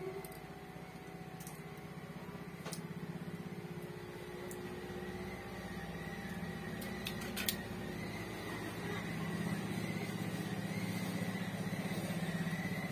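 A steady low hum, with a few faint small clicks as the phone's parts are handled, the sharpest about seven and a half seconds in.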